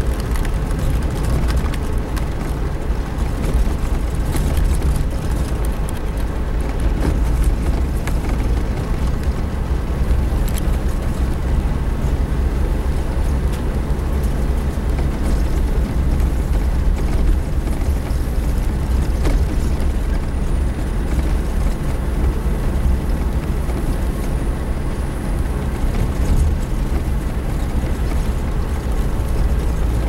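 Suzuki Jimny driving slowly along a dirt track: a steady low engine rumble with tyre and body noise, a few faint knocks here and there.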